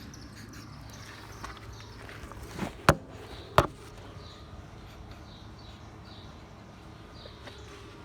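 Two sharp clicks about two-thirds of a second apart, over a steady background of short, repeating insect-like chirps.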